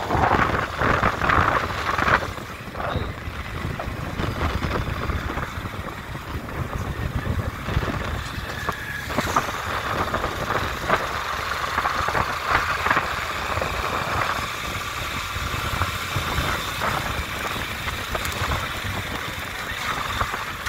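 Vehicle engine and road noise, running steadily while driving.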